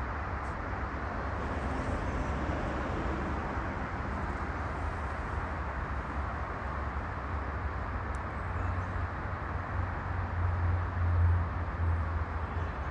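Steady outdoor rumble with a hiss over it; the low rumble swells about ten seconds in.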